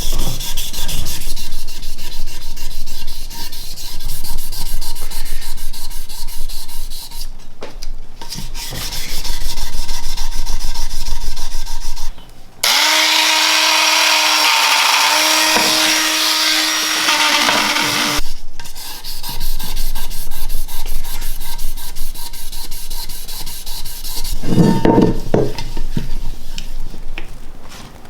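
Abrasive sanding and polishing on a tarnished bronze vase: dense, rapid scratching and rubbing. About halfway through, a steady pitched hum with loud hiss takes over for about five seconds, then cuts off suddenly.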